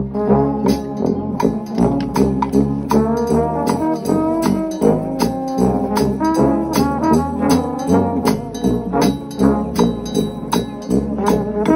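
Gospel shout band of trombones, with tuba and trumpets, playing an up-tempo tune in full, over a steady snare drum and cymbal beat.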